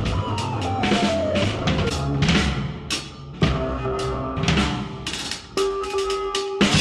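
Live drum kit pounding out an irregular beat with a Casio keyboard: early on a keyboard note slides downward, and near the end a steady, held keyboard tone sounds over the drums.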